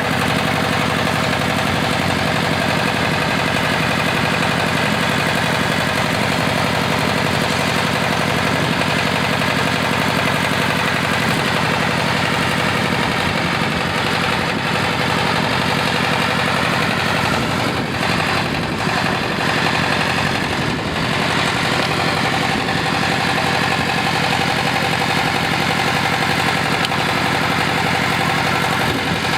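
Engine of a GY-200-1A engineering drilling rig running loud and steady, coming on suddenly right after the call to start, with a brief unevenness in its sound around two-thirds of the way through.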